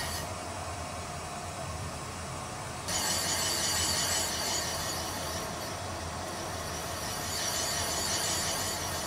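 Valve seat cutting machine with its spindle at about 180 RPM, the cutter scraping an exhaust valve seat in a Subaru cylinder head. A steady hum runs under a hissing scrape that gets louder about three seconds in and again near the end.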